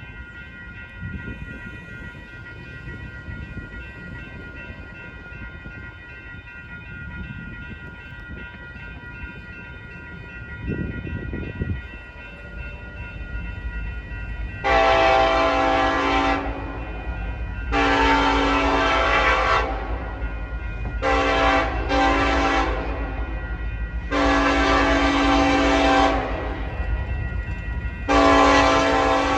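Union Pacific 8568's Nathan Airchime K5LLA air horn sounding six loud chord blasts over the low rumble of the locomotive: two long, two short in quick succession, then two long, starting about halfway through.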